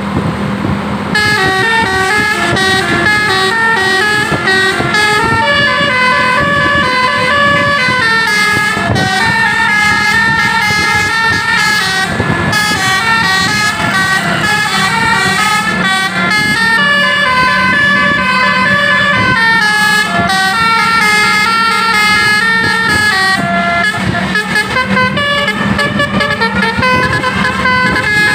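Telolet basuri multi-tone bus horn playing a long, winding melody of stepped notes, several pitches sounding together, starting about a second in. A steady low hum runs underneath.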